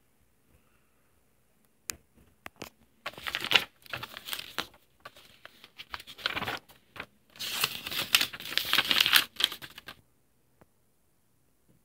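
Glossy comic-book pages being handled and turned: a few light taps, then two bursts of paper rustling, each about two seconds long.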